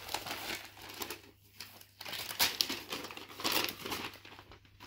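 Wrapping paper crinkling and tearing as a present is unwrapped, in irregular rustling bursts with brief pauses.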